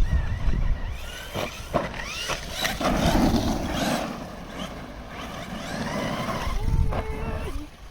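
Electric motor of an FTX Carnage 2.0 RC truck whining up and down in short rising bursts as it is throttled, with a few sharp knocks and low wind rumble on the microphone.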